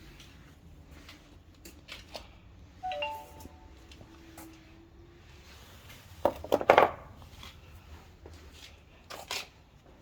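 Handling noises of clicks and knocks, with a short electronic beep about three seconds in and a brief steady hum after it. A burst of clattering comes a little past the middle and a shorter one near the end.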